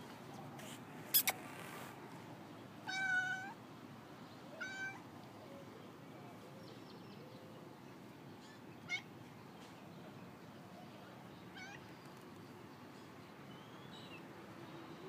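Cat meowing: one longer meow about three seconds in and a shorter one soon after, then a few brief, rising chirp-like calls spread through the rest. Two sharp clicks about a second in are the loudest sound.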